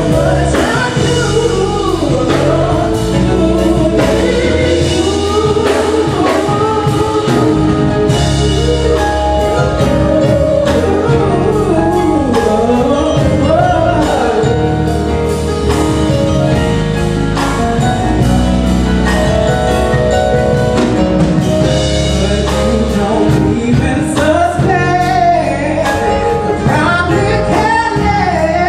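Male vocalists singing a gospel-flavoured soul ballad into microphones over a band or backing track with bass and a steady drum beat.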